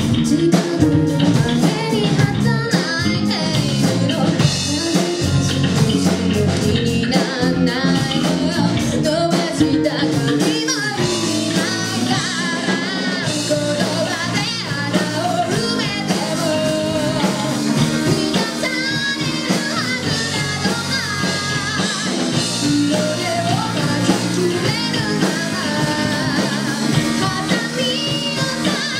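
Live rock band playing: a singer sings into a microphone over electric guitars and a drum kit, heard from the audience in a hall.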